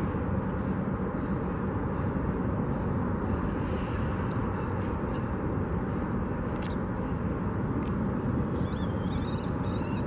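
Steady outdoor background rumble of distant traffic. There is a faint click about six and a half seconds in and a few faint high chirps near the end.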